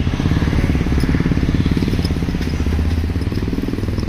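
A motor vehicle's engine running steadily nearby, with a fast, even pulse.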